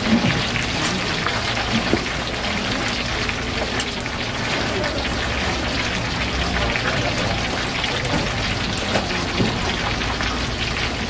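Batter-coated twigim deep-frying in a pan of hot oil, sizzling and crackling steadily.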